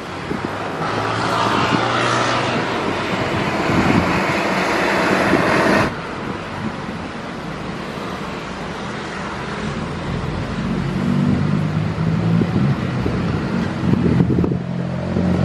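Beechcraft King Air twin-turboprop engines and propellers running at taxi power as the plane rolls toward the listener, a steady low hum. A louder rush of noise in the first six seconds cuts off suddenly.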